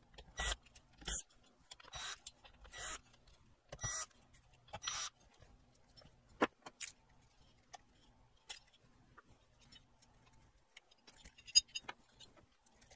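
Cordless power driver spinning in about six short bursts with a whine, backing out the screws that hold TO-3 output transistors to an aluminium heatsink. Later come scattered sharp clicks and a cluster of light metallic clinks about eleven seconds in, as the screws and transistors come off.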